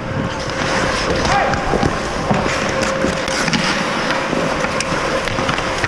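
Ice hockey play on the rink: skates scraping and carving the ice, with scattered sharp clacks of sticks and puck, players' voices, and a faint steady rink hum underneath.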